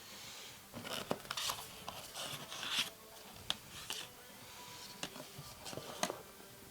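Packaging of a 7-inch vinyl record being handled: a run of rustling and scraping in the first half, then a few sharp clicks and taps.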